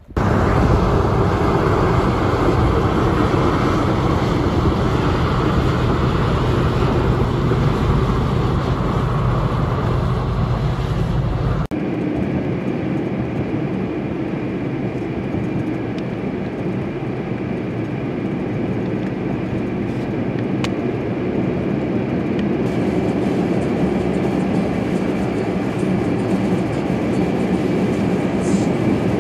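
Steady vehicle and road noise from a car driving on snow-covered roads behind snowplow trucks, with a low rumble and hum. The sound changes abruptly about twelve seconds in to a thinner, steady road noise.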